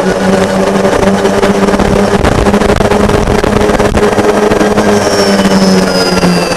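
Electric golf cart's D&D 12 hp separately excited DC motor and drivetrain whining at speed while pulling a 500 lb trailer, over a loud rushing noise. About five seconds in, the whine's pitch starts to fall steadily as the cart slows.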